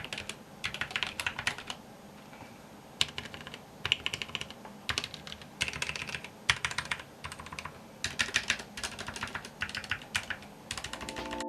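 Typing on a Glorious mechanical keyboard with lubed Cherry MX Brown switches: runs of quick keystrokes in bursts, with short pauses about two seconds in and again around eight seconds in.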